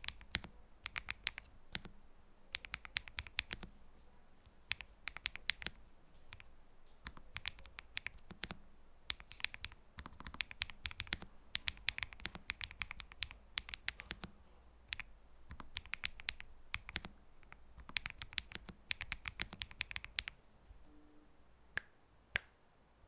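Typing on a Zouya GMK67 gasket-mount mechanical keyboard with lubed Akko Cream Blue tactile switches, polycarbonate plate, tape mod and lubed stabilizers. Quick runs of keystrokes with short pauses between them, stopping a little before the end.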